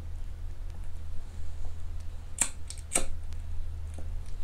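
Long-nosed utility lighter clicking as it is sparked to light a solid-fuel burner: two sharp clicks about two and a half and three seconds in, with a few fainter ticks around them, over a steady low hum.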